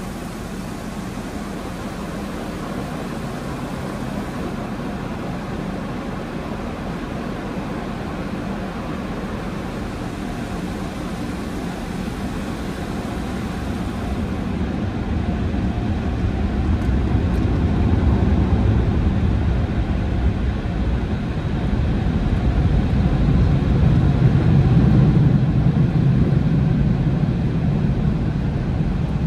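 Conveyor car wash tunnel equipment running: a loud, steady roar that grows louder and deeper about halfway through.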